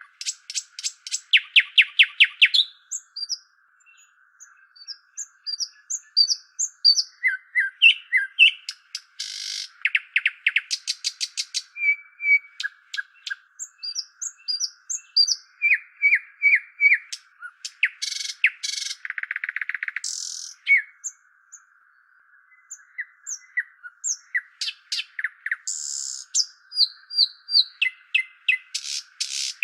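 Assorted songbirds chirping, with rapid trills and short high whistles, many calls overlapping in a busy chorus. The calls pause briefly twice.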